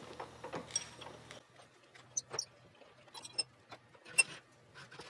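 Wrench working a nut along the threads of a bolt clamped in a steel bench vise to chase the threads, giving scattered metallic clicks and short clinks. The sharpest clink comes about four seconds in.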